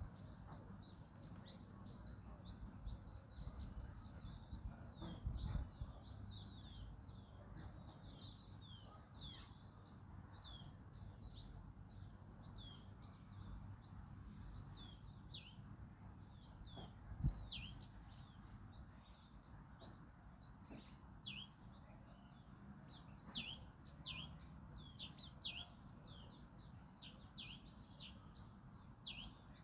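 A chorus of small birds chirping, many short high chirps that each fall in pitch, overlapping without pause, heard faintly over a low wind rumble. One brief low knock about 17 seconds in.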